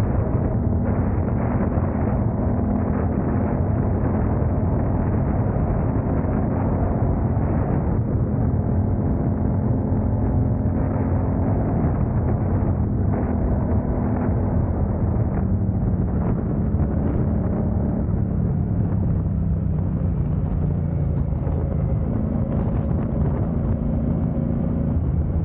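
Bentley Continental GT driving, a steady engine and road rumble whose engine pitch rises and falls a few times with speed.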